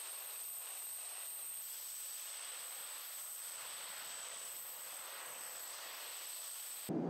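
F-16 fighter jet engines idling on the flight line, heard as a steady high whine over a hiss. Right at the end it cuts suddenly to a louder, deeper rumble.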